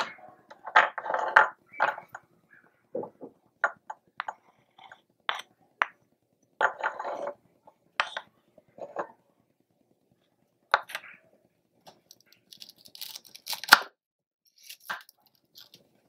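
Miniature kitchen knife and small wooden cutting board handled in short, scattered taps, knocks and scrapes as chopped chili is scraped off and the board is set down. Near the end, crisp cutting sounds as a red onion is sliced on the board.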